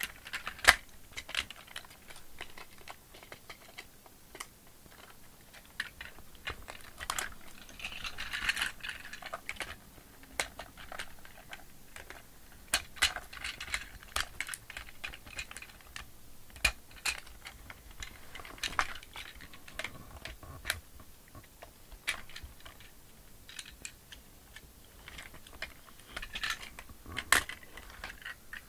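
Hard plastic parts of a transforming toy robot (a Power Rangers Megazord) clicking, snapping and scraping as they are handled and folded into place: irregular sharp clicks throughout, with short bouts of scraping.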